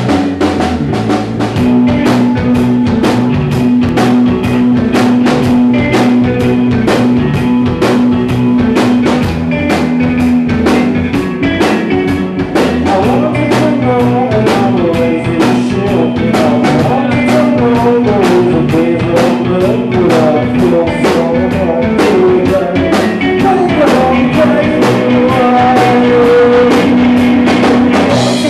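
Live rock band playing, with a steady drum beat under a held droning note. A wavering melodic line comes in about halfway through.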